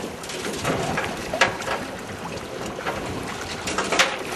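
Sea water sloshing and splashing at the side of a boat as a yellowtail kingfish is held thrashing at the surface, with a few sharp splashes. Wind is blowing on the microphone.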